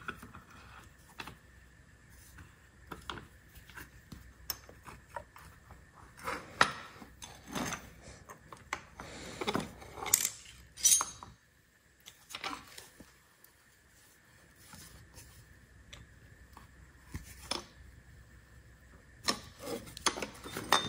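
Irregular metallic clinks, taps and rattles of steel parts and tools being handled as a shaft is pressed back into a Hilti reciprocating saw with a large C-clamp. The louder knocks come between about six and eleven seconds in, with a brief quiet stretch in the middle.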